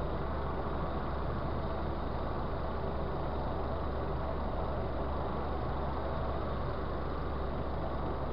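Steady road and engine noise inside a car cruising at motorway speed, a constant tyre-on-asphalt rumble with no changes.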